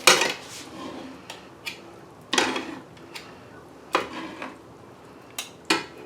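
A utensil scraping and knocking against a cooking pan while risotto is scooped out, in separate clanks and scrapes about every second and a half.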